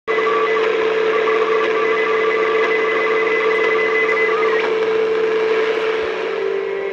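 Vintage National NC-100A shortwave receiver's loudspeaker hissing with static, with a steady whistle tone over it. Fainter, higher whistles bend in pitch and drop out about two-thirds of the way through.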